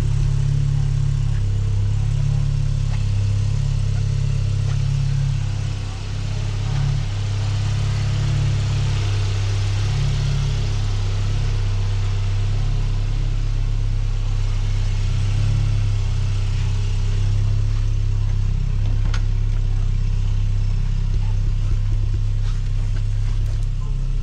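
1982 Volkswagen Rabbit pickup (Caddy) engine idling steadily during its warm-up after a cold start, with a brief dip in level about six seconds in.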